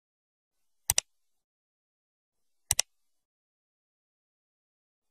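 Mouse-click sound effect of a subscribe-button animation: two double clicks, one about a second in and another nearly two seconds later, each a quick press-and-release, with dead silence between.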